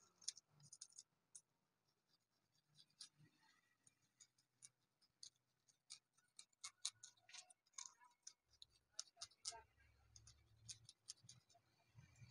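Faint, irregular scratching and ticking as excess gold acrylic paint is scraped off the polished face of a black stone tombstone plaque.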